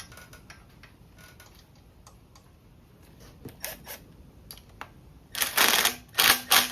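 Hand tools and bolts being handled during engine assembly: scattered light clicks and taps, then three loud, short clattering bursts near the end.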